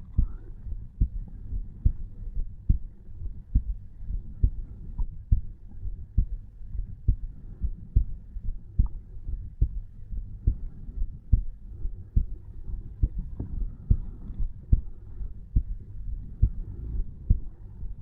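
Resting adult heartbeat heard over the tricuspid valve, a steady, regular lub-dub at about 60 to 70 beats a minute. A low hum runs underneath.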